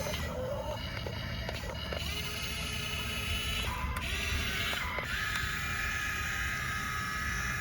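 Small electric gear motors of a remote-control toy excavator whirring, the whine shifting in pitch and starting and stopping several times as different movements are worked.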